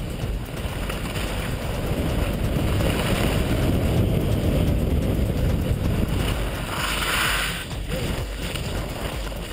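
Wind rushing over a helmet-mounted GoPro HD camera during a downhill ski run, with skis hissing over packed snow. The rush swells toward the middle, and a brief brighter hiss comes about seven seconds in.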